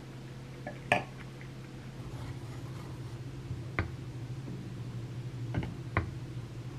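A wooden spatula stirring and scraping thick melted cheese in an earthenware ttukbaegi pot, knocking against the pot a few times in the second half. A sharp clink about a second in, the loudest sound, over a steady low hum.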